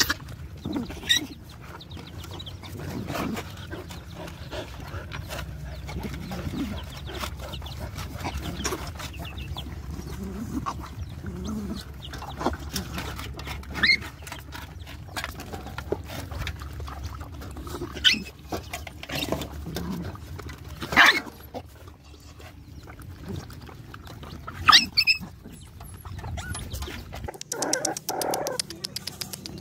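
Several young dogs eating together from a metal bowl, with occasional sharp knocks as the bowl is jostled.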